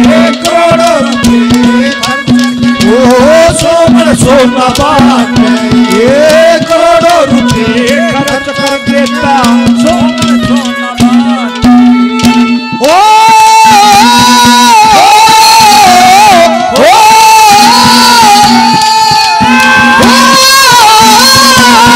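Haryanvi ragni folk music: a harmonium melody over a steady drone with hand-drum strokes. About thirteen seconds in, a male singer's voice comes in loud and high, holding long notes.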